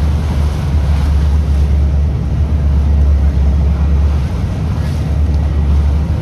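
Cruise boat under way: a steady low engine drone, with wind buffeting the microphone.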